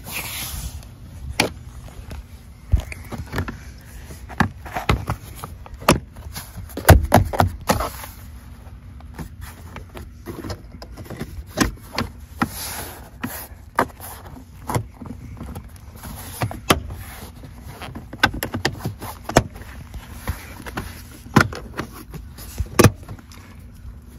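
Plastic interior trim panels being pressed and snapped into place around a car's door opening: irregular clicks, taps and knocks, with a loud cluster of knocks about seven seconds in.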